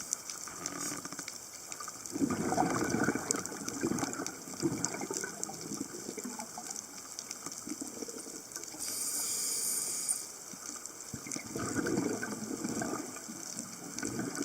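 Water gushing and bubbling in irregular surges, strongest about two seconds in and again near the end, with a brief high hiss about nine seconds in.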